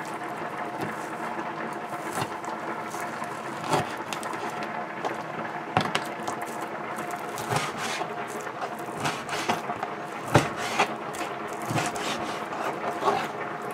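Cleaver chopping raw chicken on a plastic cutting board: irregular sharp knocks, about one every one to two seconds, the loudest about ten seconds in, over a steady background hum.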